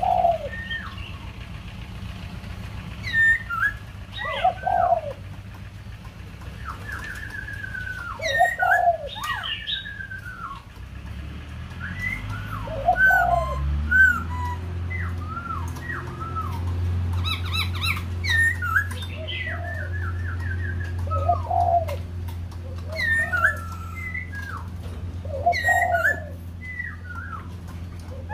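Caged khướu đầu bạc laughingthrush singing loud whistled phrases of sliding, looping notes with lower notes among them, repeated every few seconds. A low steady hum comes in about halfway through.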